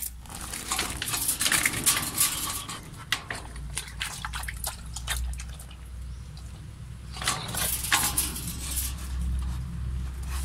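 Doberman lapping water from a steel bowl in two wet, clicky bouts, the first about a second in and the second near the end.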